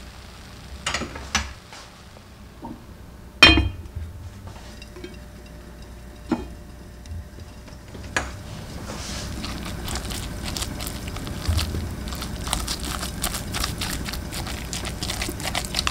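Kitchen utensils clinking and tapping against a pan: a few separate knocks, the loudest a ringing clink about three and a half seconds in, then from about eight seconds a busier run of scraping and tapping as pollock roe is broken up and stirred into fried rice.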